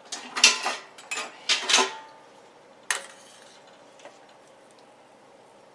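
Kitchen utensils and a cooking pot clattering: a run of clinks and knocks over the first two seconds, then one sharp clink about three seconds in.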